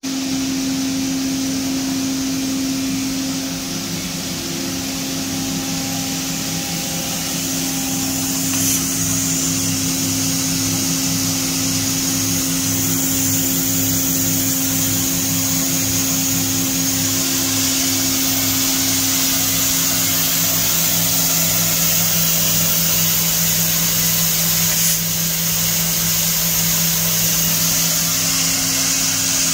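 Roku-Roku Sanyo HC-658 vertical machining center running under power: a steady hum with a low pulse about twice a second, under a high hiss that grows stronger about a third of the way in.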